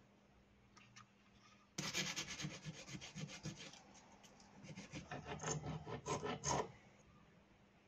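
A small hand file scraped back and forth between the cooling fins of a pocket bike engine's cylinder, in quick, even strokes. It comes in two bouts, the first starting about two seconds in and the second ending near seven seconds.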